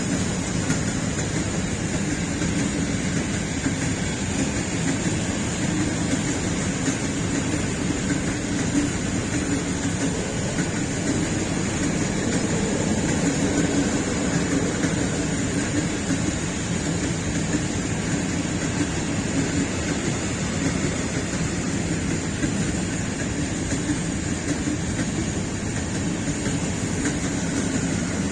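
Steady rolling noise of the steel wheels of a long freight train of silo wagons running past on the rails.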